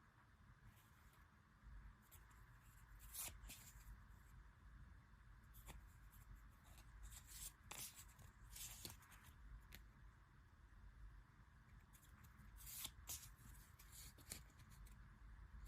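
Faint rustling and crinkling of packaging and cards being handled, with scattered soft clicks and brief scrapes.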